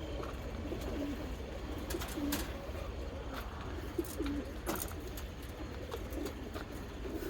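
Racing pigeons cooing, with repeated low warbling coos. A few sharp clicks or knocks sound over them; the loudest comes about four seconds in.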